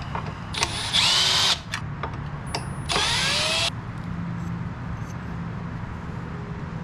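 Handheld power tool run in two short bursts, each about a second long with a rising whine as the motor spins up. There are a few light clicks between the bursts.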